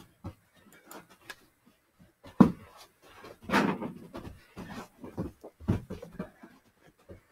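Sneakered feet shuffling, scuffing and stomping on a carpeted floor in quick, irregular steps during a side-to-side footwork drill, with panting. A sharp thump about two and a half seconds in is the loudest sound.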